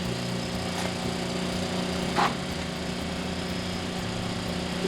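A small engine running steadily at an even speed, with one brief sharp sound about two seconds in.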